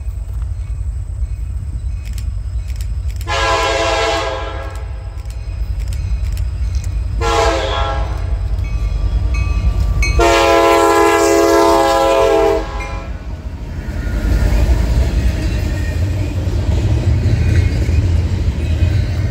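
CSX diesel freight locomotive's multi-tone air horn sounding the grade-crossing signal: a long blast, a short one, then a long final blast. From about two-thirds of the way in, the locomotives and double-stack container cars pass close by with a heavy, steady rumble of wheels on rail.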